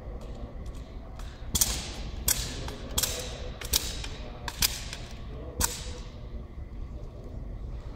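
Wooden-stocked drill rifles being handled in unison during a silent drill sequence: a series of about six sharp slaps and knocks, roughly one every three-quarters of a second, as hands strike the rifles and the rifles are brought down to the order.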